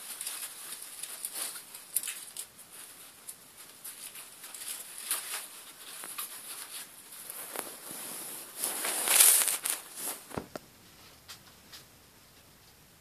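Pet rats moving about the cage floor, rustling and scratching in the hay and bedding: scattered light rustles, loudest in a cluster about nine seconds in.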